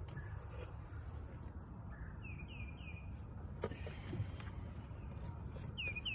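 A low steady rumble with a small bird chirping in quick runs of three falling notes, twice, and a couple of light knocks near the middle.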